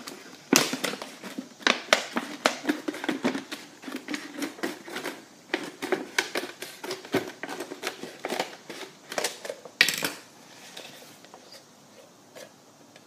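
Scissors cutting through the thin plastic wall of a 2-litre soda bottle: a fast, irregular run of snips with the plastic crackling and crinkling. It ends with a sharper click about ten seconds in, after which it is much quieter.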